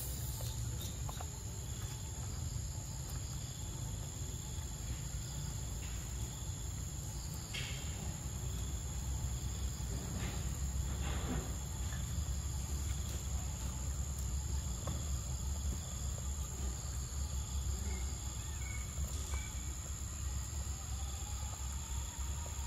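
Insects buzzing steadily at one high pitch over a low rumble, with a few brief soft noises about a third of the way and halfway through.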